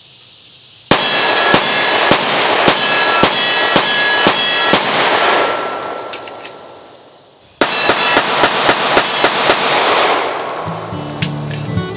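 Remington R51 9mm semi-automatic pistol fired rapidly with 124-grain +P loads: a string of about eight sharp shots, roughly two a second, that fade into ringing. A second quick string starts after about seven and a half seconds. Guitar music comes in near the end.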